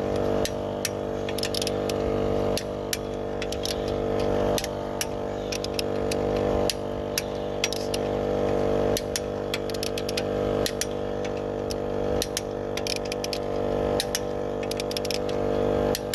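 Portable air compressor running with a steady hum while inflating a car tire, with irregular sharp clicks over it.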